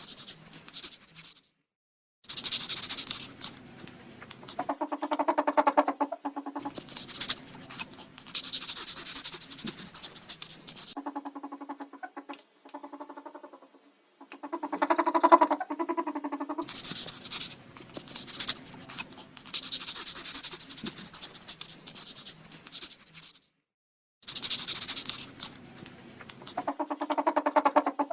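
Ferret sounds in a string of bursts a few seconds long. Rapid pulsed clucking chatter alternates with hissy, scratchy noise, with short silent gaps between bursts.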